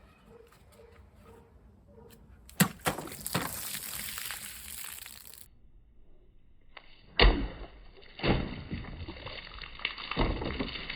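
Glock 78 knife blade cutting through a plastic bottle: a sharp crack about two and a half seconds in, then a few seconds of crackling plastic. After an abrupt break, more sharp knocks and crackling follow around seven and eight seconds in.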